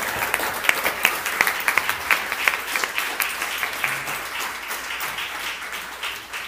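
Cinema audience applauding, many hands clapping at once, the clapping thinning and fading away toward the end.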